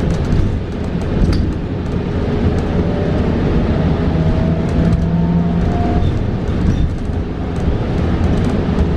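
Interior ride noise of a New Flyer XE40 battery-electric bus in motion: a steady low road rumble with small rattles and clicks. Between about 3 and 6 seconds in, a thin whine rises in pitch.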